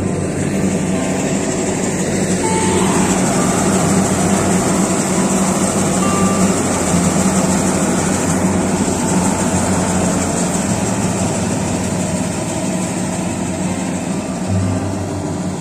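Kubota combine harvester running steadily: a loud, even machine noise with a low hum underneath.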